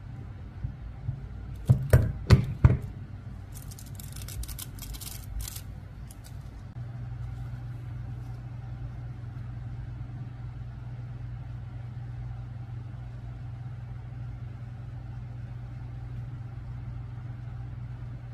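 A few sharp knocks, then gold hot-stamping foil crinkling and rustling as it is peeled off stamped leatherette, over a steady low hum. The hum grows slightly louder about seven seconds in.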